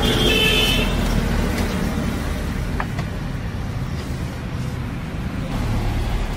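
Road traffic noise, with a vehicle horn sounding briefly near the start.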